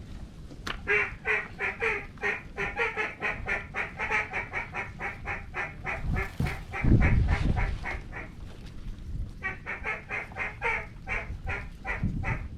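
Hunters' duck calls blown in fast runs of quacks, about five a second, with a short break before a second run starts near the end. A loud low rumble of wind on the microphone comes about seven seconds in.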